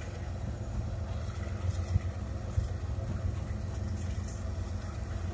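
Norfolk Southern diesel locomotives (the coal train's pushers) rolling past with a steady low engine drone.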